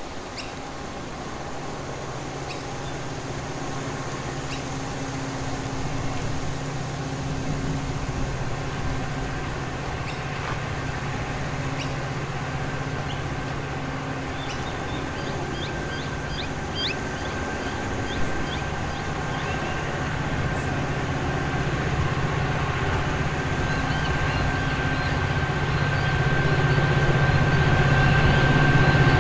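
G-class diesel locomotive G532 approaching at the head of a freight train, its engine drone growing steadily louder, with a thin steady whine that strengthens as it nears. A small bird chirps a quick run of notes about halfway through.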